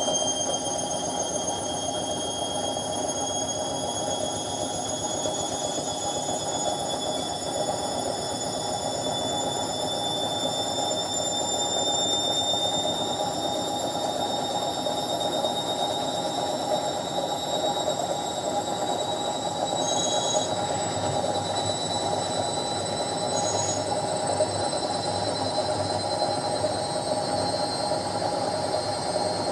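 Indesit washing machine spinning at top speed: a steady rumble from the drum, with a high whine from the motor that climbs slowly in pitch.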